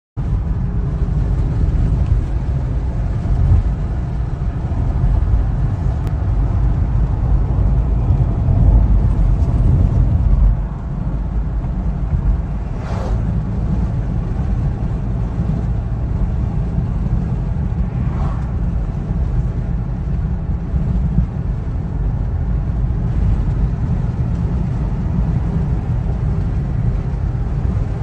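Road and engine noise of a moving car heard inside its cabin: a steady low rumble, a little louder for the first ten seconds or so, with two short higher swishes near the middle.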